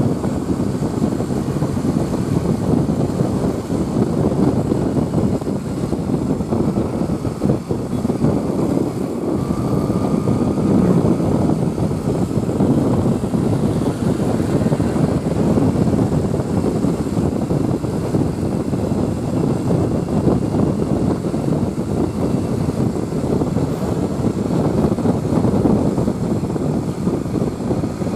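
Steady engine and traffic noise of road vehicles running, with no horn sounding.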